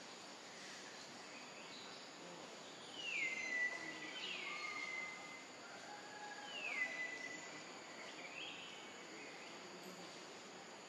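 Young macaques giving high, whistle-like squeals: three calls, each sliding down in pitch and then held for about a second. A faint steady insect hum runs underneath.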